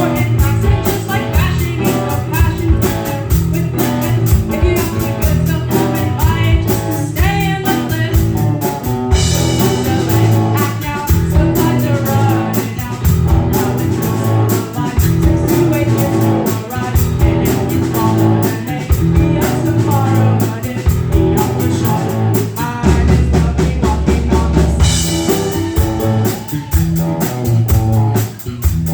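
A live rock band plays a song with a singer, electric guitar, bass and drum kit. Cymbals crash and ring out about nine seconds in and again near the end.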